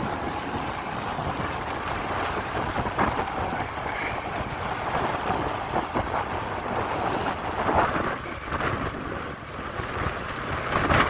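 Strong headwind buffeting the microphone in gusts, with heavy rain falling.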